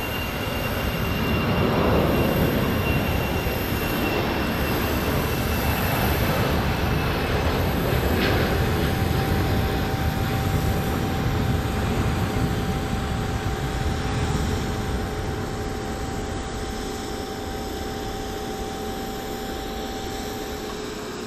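Boeing 737-400's CFM56 jet engines running at high thrust as the airliner rolls at speed down a wet runway, their steady roar carrying a high whine. The sound swells about two seconds in, holds, then slowly eases over the last few seconds.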